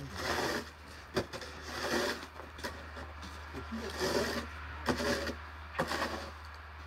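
Snow shovel blade scraping across packed snow in about five short pushes, with a few sharp knocks in between.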